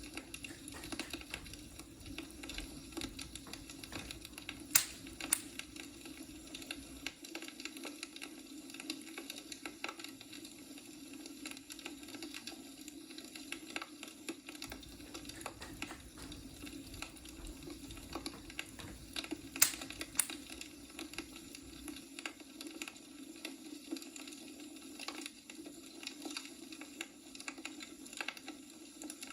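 Wood fire in a fireplace: logs crackling with a constant scatter of small snaps and a few louder, sharp pops (a pair about five seconds in and another pair about twenty seconds in), over a steady low hum.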